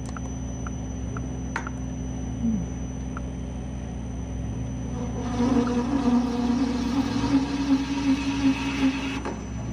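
Metal lathe running while button cutters form an involute profile in a tool-steel gear-cutter blank on a mandrel. About five seconds in, a loud, harsh cutting noise with a steady buzz starts up: the work is vibrating badly, which is chatter. It lasts about four seconds and then cuts out suddenly as the mandrel holding the work lets go.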